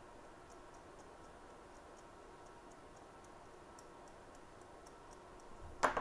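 Faint, irregular light ticking, a few ticks a second, as a fine metal tool scrapes along the edge of a RAM chip on a phone logic board, over a low steady hum. A louder click comes near the end.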